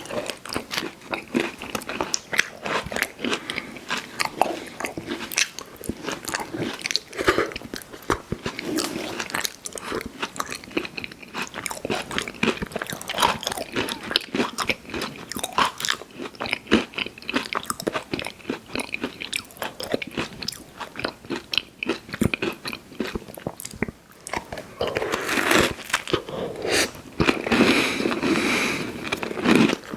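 Close-miked eating of candy sweets: a steady run of crisp bites and crunches with chewing between them. About 25 seconds in it grows louder and denser.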